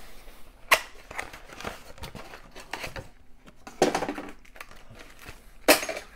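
Plastic packaging of a replacement laptop battery rustling and crinkling as it is handled, with a few sharp crackles, the loudest about a second in and near the end.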